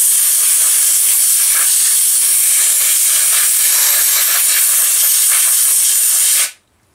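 Compressed-air blow gun blowing a loud, steady hiss to clean out a chainsaw's impulse-line passage. It cuts off suddenly near the end.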